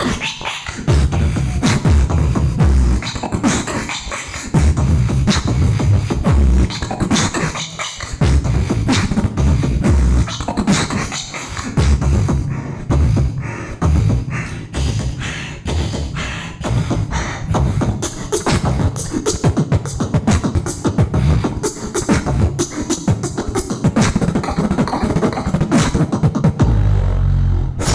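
Solo beatboxing in a fast, steady rhythm of vocal kick drums, snares and hi-hat clicks over deep bass hits. A held deep bass tone comes near the end.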